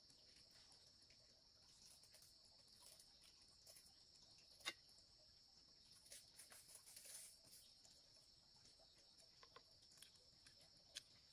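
Faint, steady high insect chorus, with scattered light clicks and taps and one sharper click about halfway through.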